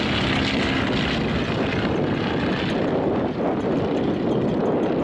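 Two Boeing Stearman biplanes flying past, their radial engines and propellers running steadily. The sound turns duller after about three seconds as the higher part fades.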